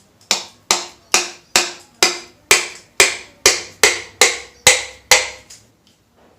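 Twelve sharp hammer blows, a little over two a second, each ringing briefly, striking a Pulsar 200NS engine part glued down with Anabond sealant to knock it loose.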